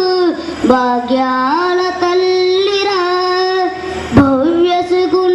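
A boy singing into a handheld microphone, holding long notes and sliding between pitches.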